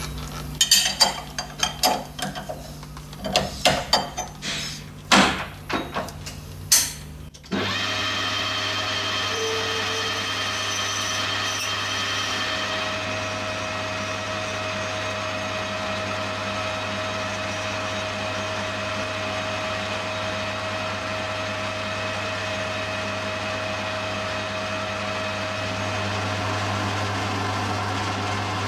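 Clicks and metal knocks as a small brass part is handled and set in a metal lathe's collet. About seven seconds in, the lathe starts abruptly and runs with a steady hum and whine as a cutting tool chamfers the spinning part.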